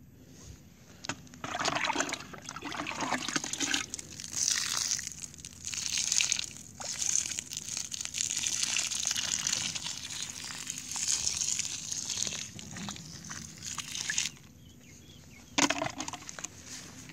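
Water being poured from a watering container onto loose freshly dug soil, splashing and trickling in uneven surges. It stops near the end, followed by one short last splash.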